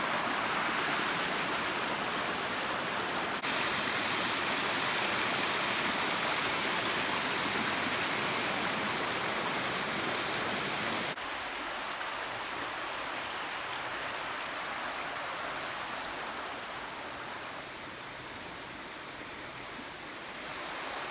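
Fast-flowing river water rushing steadily. The sound changes abruptly twice, about three and eleven seconds in, and is a little quieter after the second change.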